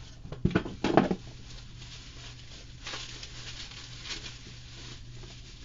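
Handling a Wera Zyklop 1/4" socket set and its packaging: a few sharp knocks and clatters in the first second, then softer rustling.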